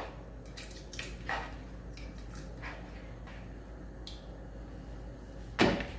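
Chopped mushrooms tipped from a plastic bowl into a pot of broth, with scattered soft knocks and scrapes of a spoon against the bowl. There is one louder thump near the end.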